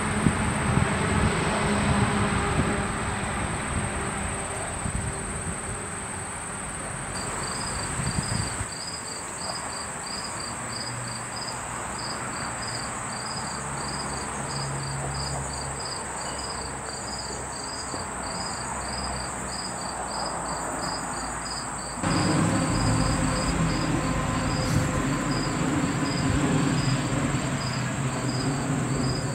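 A cricket chirping in a steady rhythm, about two chirps a second, starting about a quarter of the way in, over a thin, steady high-pitched insect buzz. A low rumble of background noise comes and goes at abrupt changes.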